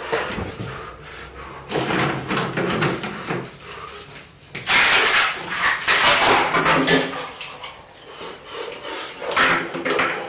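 A man gasping and blowing out hard, breathy exhales from a mouth burning with chili heat, with knocks and clatter as a fridge freezer is opened and a plastic ice-cube tray is handled.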